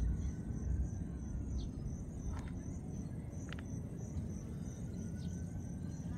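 Insects chirping in a steady, even pulse, a high chirp about four times a second, over a low outdoor rumble.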